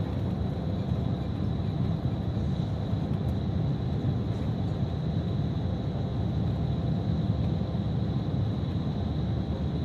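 Bus on the move: steady engine and road rumble, with a faint steady high-pitched whine.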